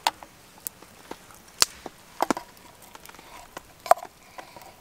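Scattered sharp metallic clinks and taps, a few of them ringing briefly. A stainless steel mug is knocked against the rim of a Jetboil cooking pot to tip minute rice into chili, with the spoon in the pot rattling.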